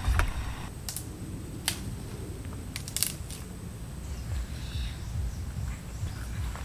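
Camp cooking gear being handled: a few sharp clicks and light knocks, several close together about three seconds in, over a low rumble.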